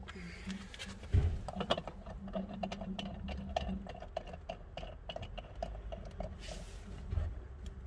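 Screw-on filler cap of a Karcher SC2 steam cleaner being fitted and turned down by hand: a knock about a second in, then a run of quick, irregular small clicks as the cap is screwed tight.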